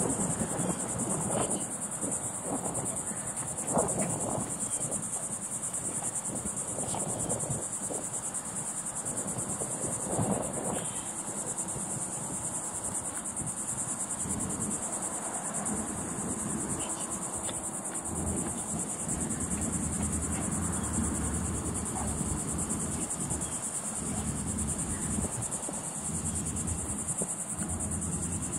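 Steady, high-pitched insect chorus, one unbroken band of sound with no pulsing. A low rumbling noise runs underneath, with a few soft knocks in the first ten seconds or so.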